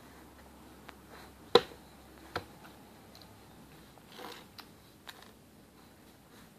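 A few sharp taps and knocks from a baby's hands patting and grabbing at a wooden table top among scattered cereal pieces, the loudest one about one and a half seconds in and a second about a second later, then lighter clicks and a brief rustle.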